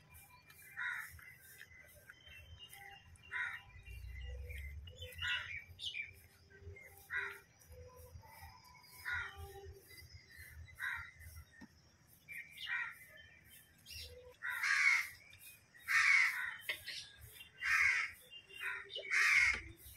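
Crows cawing repeatedly, with single short caws about a second apart. The caws grow much louder for the last six seconds, with about five strong caws in a row.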